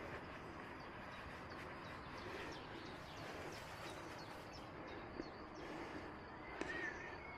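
Faint, steady outdoor background noise with a few soft clicks, and a short chirp near the end.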